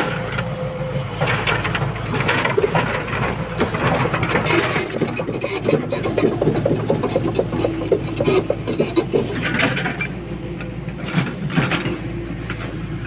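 Tata Hitachi EX200LC hydraulic excavator's diesel engine running steadily under work, with irregular clattering from the machine and the earth it is moving.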